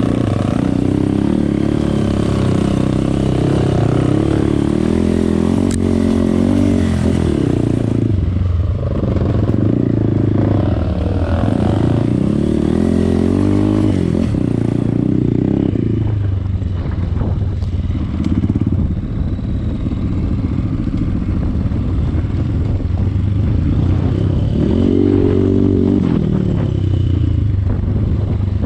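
Off-road trail motorcycle engines revving in repeated surges, rising and falling in pitch over a steady low engine drone, with some clatter.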